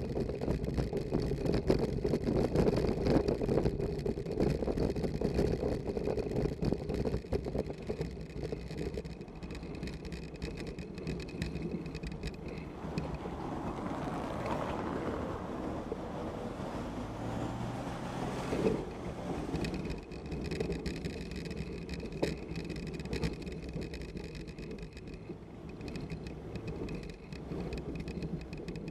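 Bicycle riding over cobbles, picked up through a handlebar-mounted action camera: a continuous dense rattle and buzz from the camera and its improvised mount shaking on the stones, heaviest in the first several seconds. In the middle a rising and fading hiss of a nearby motor vehicle's tyres and engine joins in.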